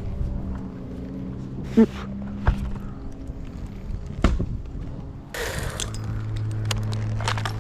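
An engine running steadily at idle, with a few sharp knocks and a short rustling crash about five seconds in.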